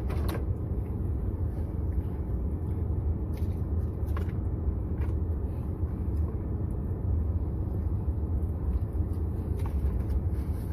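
Steady low rumble of a car's running engine heard from inside the cabin, with a few faint clicks and taps.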